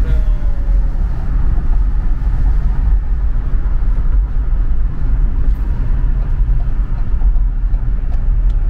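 Steady low road rumble inside a moving car.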